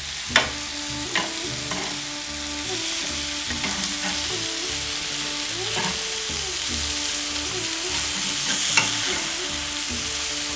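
Marinated chicken pieces sizzling in hot oil on a grill pan as they are turned over, with a few sharp clicks of the utensil against the pan.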